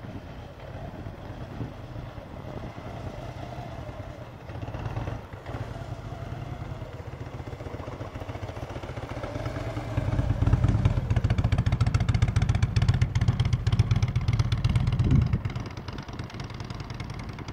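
Harley-Davidson Electra Glide Ultra Limited trike's V-twin engine running at low riding speed. It gets much louder about ten seconds in and stays loud for about five seconds as the trike passes close, then drops back as it rides away.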